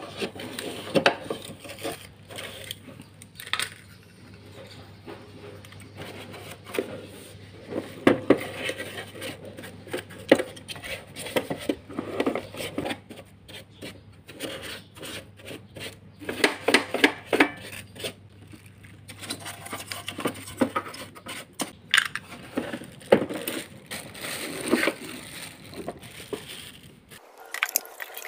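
A small brush scrubbing caked dust out of a canister vacuum cleaner's plastic dust compartment: scraping and rubbing with irregular light knocks and clatter of plastic.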